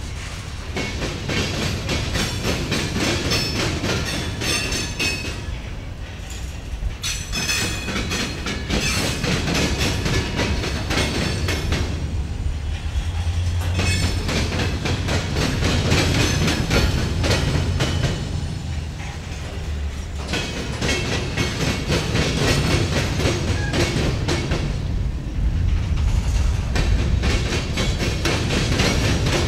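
Freight train's covered hopper cars rolling over railroad diamond crossings: steel wheels clatter and bang across the crossing gaps in bursts about every six seconds, with high metallic ringing over a steady low rumble.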